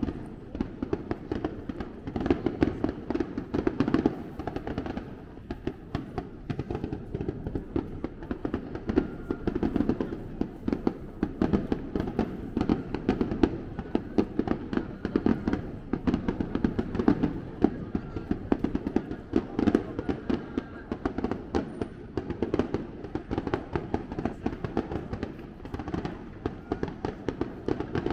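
Aerial fireworks going off in rapid succession: a continuous, dense crackle of many bangs and pops with no break.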